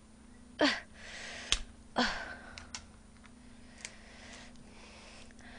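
Boiled lobster shell being pulled apart by hand: a sharp click about a second and a half in and several fainter clicks of shell, with soft rustling between them. Two short breathy sounds from the eater, about half a second and two seconds in, are the loudest things.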